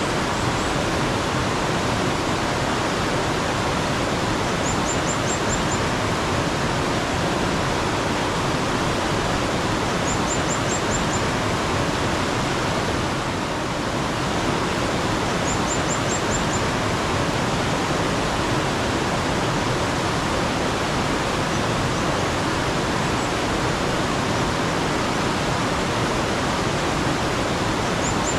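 Running mountain stream rushing steadily, with a bird giving a short run of about five quick high notes, repeated every five seconds or so.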